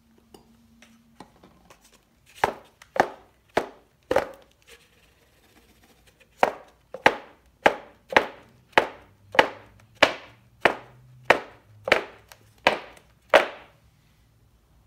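A board carrying a wet clay slab knocked repeatedly against the worktable, jolting the red and white slip so it flows into a marbled pattern. There are four sharp knocks about half a second apart, a pause, then about a dozen more at a steady pace of under two a second.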